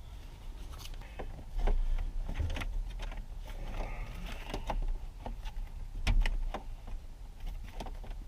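Plastic steering column cover being pried and worked apart by hand at its hook-style hinges: scattered plastic clicks and knocks over low handling bumps.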